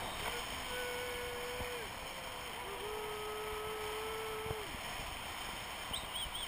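Steady rush of air over the camera during a paraglider flight. A thin steady tone sounds for about a second, then again for about two seconds, and a wavering high tone starts near the end.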